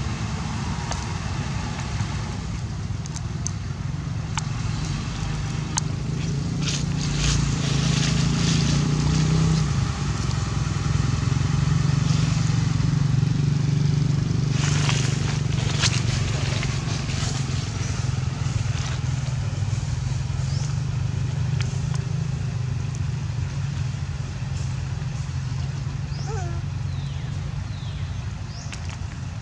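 Steady low hum of an engine running, growing a little louder for a while in the middle. Scattered crackles and rustles sit over it, and a few faint short squeaky calls come near the end.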